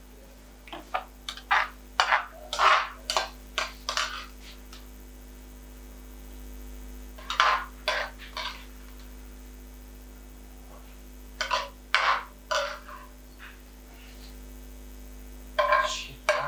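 Metal utensils clinking and scraping against a metal pan and plates in several short spells, over a steady low hum of kitchen equipment.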